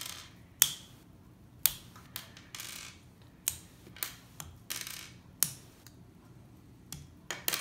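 Small plastic LEGO pieces clicking and clattering as they are handled, pushed together and set down on a wooden floor: a dozen or so sharp, irregular clicks with a short rattle now and then.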